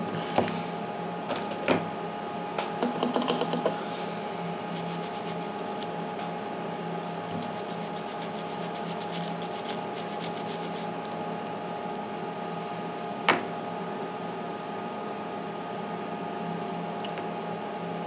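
Cleaning a Samsung Galaxy S4 logic board after soldering: handling clicks in the first few seconds, then several seconds of rapid fine scratching, and one sharp click later, over a steady electrical hum from bench equipment.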